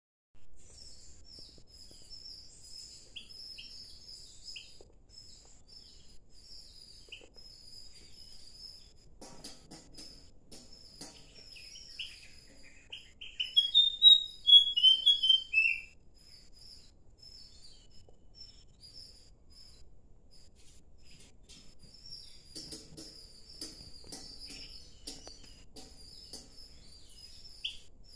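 Birds chirping continuously in high, quick notes, with one loud whistled phrase of notes stepping up and then down about halfway through.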